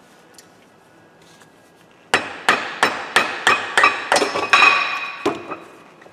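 Hammer blows on a steel wheel hub, a quick run of about ten ringing metal-on-metal strikes, roughly three a second, starting about two seconds in, with one more blow near the end. The mechanic is driving out the old wheel-bearing race (cup).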